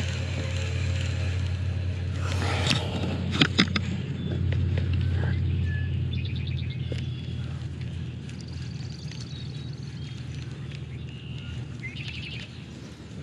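Birds chirping in short rapid trills several times over a steady low rumble, with two or three sharp clicks about three and a half seconds in.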